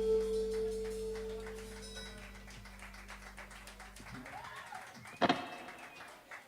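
A live band's final held chord fading out, a woodwind-like held note and a low bass note dying away over about four seconds, then a single sharp knock about five seconds in, in a mixing-desk recording.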